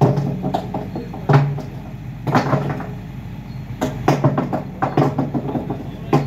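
Loose stones clacking and knocking together in irregular clusters of sharp strikes as they are picked up and set down by hand, over a steady low engine hum.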